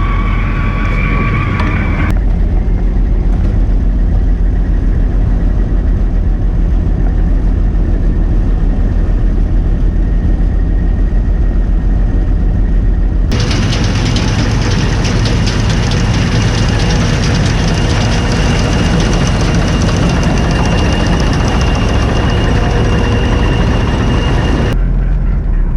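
A combine harvester's diesel engine and machinery running steadily under load, with a deep hum. The sound changes abruptly twice, about two seconds in and about halfway through, the second part carrying a thin high whine over it.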